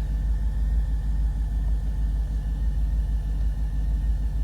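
2006 Jeep SRT8's 6.1 Hemi V8 idling steadily with a low rumble while warming up. The engine has a cylinder 5 misfire (code P0305) that persists after new coils, plugs and rebuilt injectors, with misfire counts climbing as it warms.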